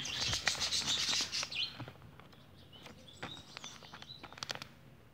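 A printed paper sheet rustling and crinkling as hands fold and press down the creases of a paper airplane. The rustling is loudest in the first two seconds and then thins to scattered small crackles, with faint bird chirps in the quieter part.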